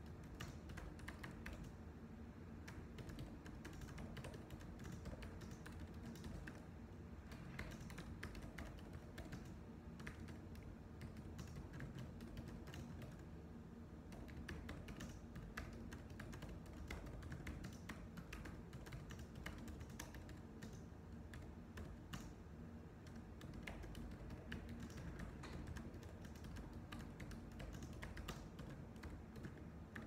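Computer keyboard typing: a faint, continuous run of irregular key clicks, over a low steady hum.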